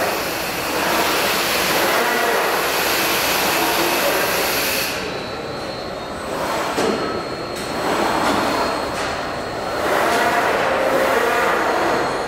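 Linear transfer machine running: a steady mechanical noise that swells and eases in waves every few seconds. A high hiss stops about five seconds in, and thin, high, steady tones carry on after it.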